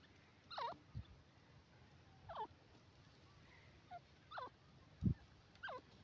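Grey francolin giving short, soft, wavering calls that fall in pitch, about five of them spaced a second or two apart. A dull thump about five seconds in.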